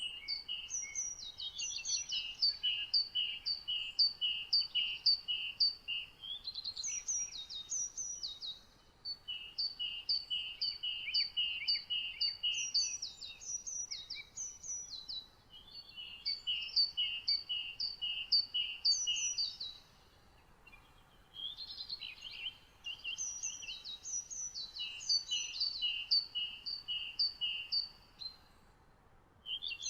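Songbirds singing: quick runs of short, repeated high chirping notes at two pitches, overlapping one another, with two short pauses in the latter half, over a faint steady hiss.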